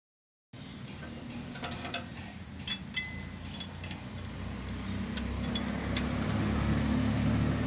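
Scattered metallic clicks and taps of a spanner working the main-shaft bolts of an open tractor gearbox, over a steady low hum that grows louder in the second half.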